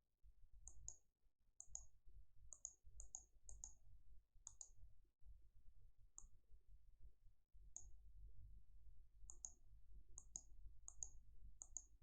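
Faint computer mouse clicking, about twenty clicks at an irregular pace, many as quick press-and-release pairs, over a low electrical hum.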